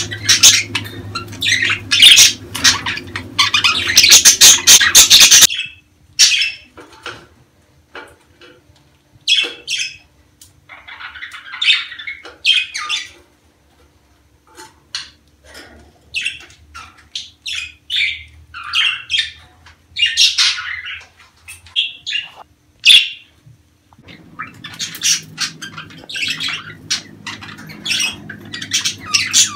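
Budgerigars chattering, warbling and squawking in quick short calls: breeding-season courtship chatter. The calls are dense at the start and again near the end, with scattered separate calls in between.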